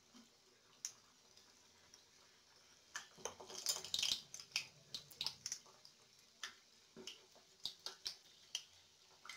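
Samosas deep-frying in hot oil in a kadhai on a low flame: scattered crackles and pops, thickest from about three to five seconds in.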